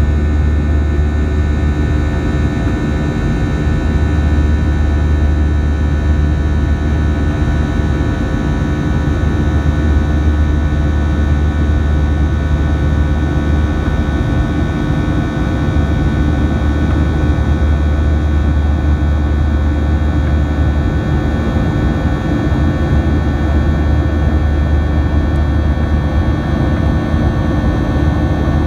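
Boeing 737-700's CFM56-7B turbofan engines and airflow heard inside the cabin during the climb after takeoff: a loud, steady low drone with a set of steady whining tones over it.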